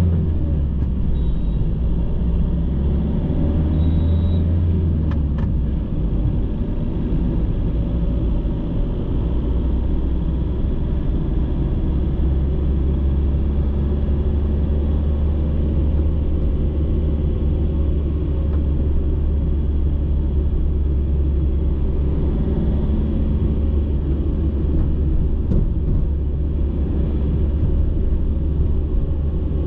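Car driving at city speed, heard from inside the cabin: a steady low rumble of engine and tyre noise.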